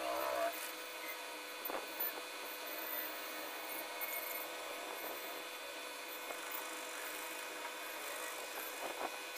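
Graphite pencil scratching across drawing paper in shading strokes, with a few soft knocks and rustles as the sheet is handled and turned.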